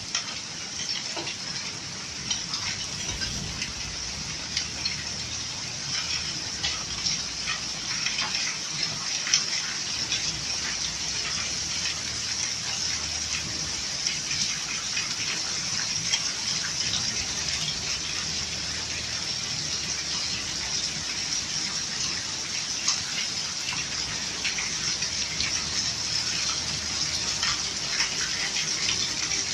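Heavy hail and rain pouring down, a dense steady hiss dotted with many sharp ticks of hailstones striking. It grows a little louder near the end.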